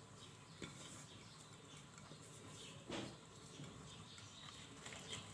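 Near silence: faint room tone with a few soft taps, the clearest a light knock about three seconds in.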